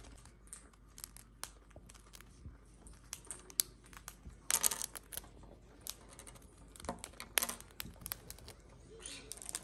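Cockatiels crunching dried banana chips in their beaks: a scatter of small sharp cracks and clicks, with louder crunches about four and a half and seven and a half seconds in.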